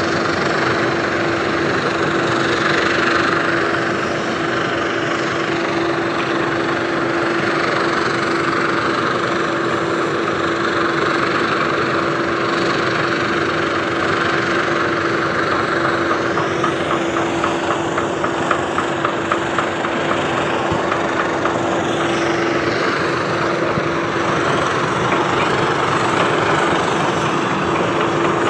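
An engine or machine running steadily with a constant hum, with a run of quick ticks, about four a second, from about seventeen to twenty-one seconds in.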